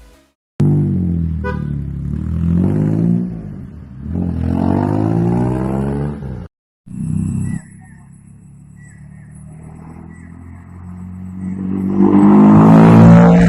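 Maruti 800's three-cylinder petrol engine being revved in several edited clips, its pitch rising and falling with each blip of the throttle. After a quieter stretch in the middle it builds to its loudest near the end.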